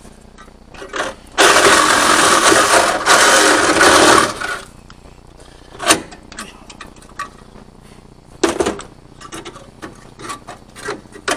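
A power tool on the van's sheet-metal body runs in one loud burst of about three seconds, easing briefly about halfway through. A few sharp metal knocks and small clatters follow.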